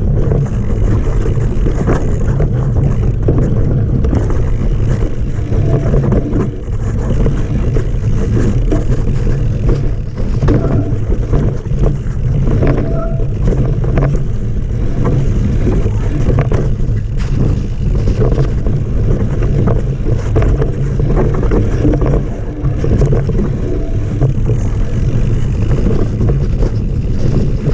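Mountain bike riding fast down a rough dirt trail. A steady wind rumble on the camera microphone mixes with the rattle and knocks of the bike over bumps.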